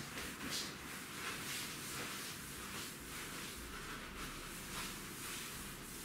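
Faint household handling sounds at a kitchen counter: soft rustling and a few light knocks.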